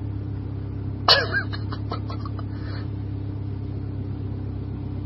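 Steady low drone of an idling car, heard from inside the cabin. About a second in, one sudden sharp loud sound trails off into a quick run of short pulses over the next second and a half.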